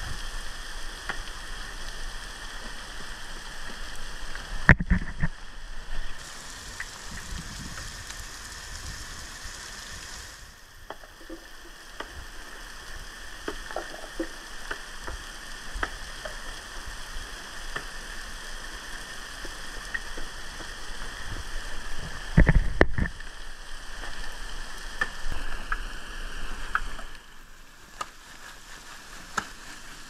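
Steady hiss of water running in a partly frozen waterfall. Two dull knocks stand out, one about five seconds in and a heavier one about three-quarters of the way through, with faint scattered ticks between them.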